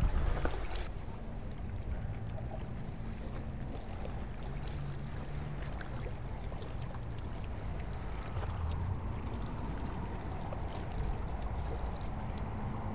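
Steady low outdoor rumble with a faint low hum running through it, after a short burst of louder, rumbling noise on the microphone at the very start.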